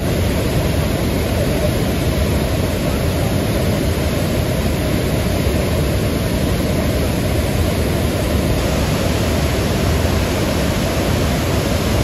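Mountain river in flood, swollen by heavy rain and churning over boulders: a steady, loud, deep rush of water.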